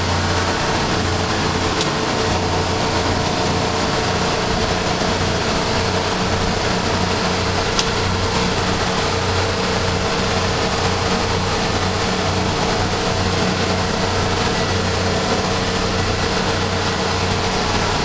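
Sealine SC29 motor cruiser's inboard engine running steadily at planing speed, a little over 20 knots: a constant engine drone under the steady rush of water and wind. There is a sharp click about eight seconds in.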